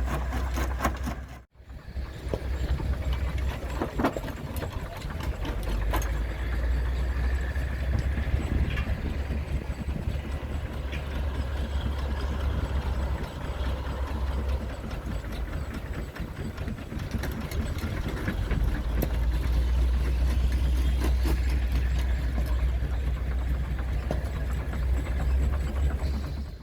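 Goodwin Barsby Acme stone crusher running, belt-driven by a 1918 Ruston Proctor steam traction engine: continuous mechanical noise with a deep rumble that swells and fades, and occasional sharp knocks. The sound cuts out briefly about a second and a half in, then carries on.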